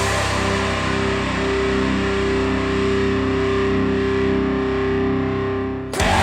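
Rock music: a distorted electric guitar chord held and ringing out with no drums. Just before the end the full band comes back in suddenly.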